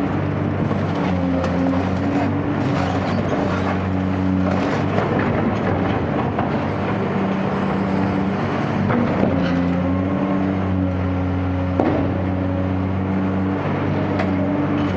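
Caterpillar 385C excavator's diesel engine running steadily under working load, its pitch shifting slightly now and then. Scattered knocks and crunches of concrete being broken sound over it, with one sharp knock near the end.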